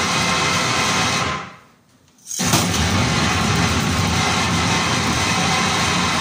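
Harsh noise played live through effects pedals and amplifiers: a dense, loud wall of distorted static that fades out about a second and a half in, drops to near silence for about half a second, then cuts back in abruptly and runs on.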